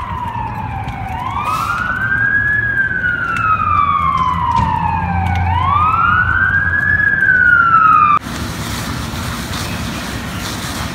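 Emergency vehicle siren in a slow wail, rising and then falling twice over a low engine rumble. About eight seconds in it cuts off abruptly, giving way to a steady rushing noise.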